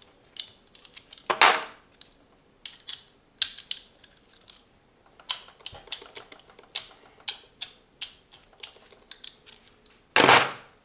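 Steel sockets and extension bars from a socket set clicking and clinking against each other and the plastic case as they are handled: an irregular run of light clicks, with louder clattering bursts about a second and a half in and near the end.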